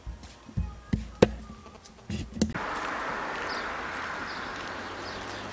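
A few scattered knocks and bumps, then, after a cut, steady outdoor background noise with faint bird chirps.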